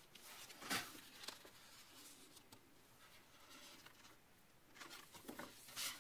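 Pages of a paperback book being opened and turned by hand: soft paper rustles, with a louder brush of paper about a second in and again near the end.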